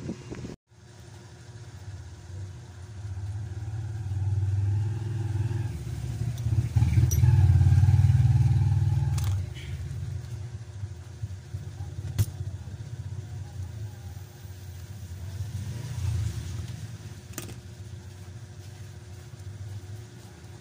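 Low engine-like rumble that swells to its loudest about eight seconds in and then eases off, with a few sharp clicks.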